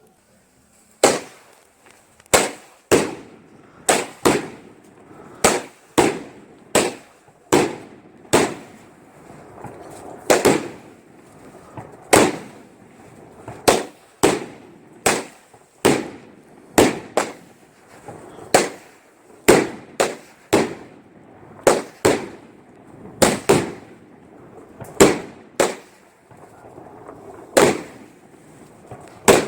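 A 25-shot salute firework cake firing: an irregular string of sharp, loud bangs, about one to two a second, starting about a second in.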